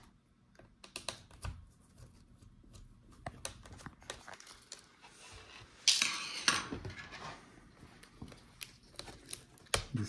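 Light clicks and small scrapes of hand tools working at a laptop's motherboard connectors, with a louder rustling scrape about six seconds in.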